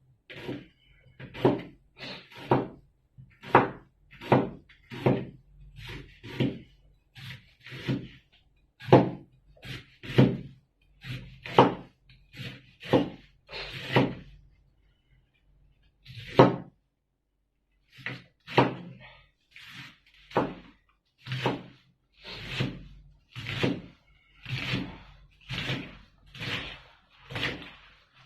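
Kitchen knife chopping choy sum on a cutting board: a steady run of knocks, about one to two a second, with a pause of a few seconds about halfway through.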